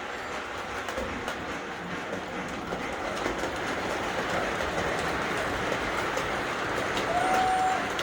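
O gauge model trains running on the track: a steady whirring rumble of motors and wheels on rail that grows a little louder, with a brief steady tone near the end.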